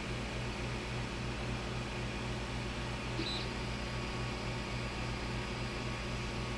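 Creality Ender 5 Plus 3D printer's cooling fans running steadily while it heats up, over a low hum that pulses at an even rate.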